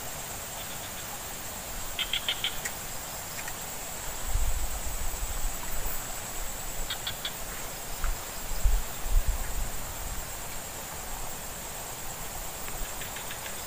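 Insects in swamp vegetation making a steady high hiss, with short rapid chirping trills about two seconds in and again near seven seconds. A few low rumbles come in the middle.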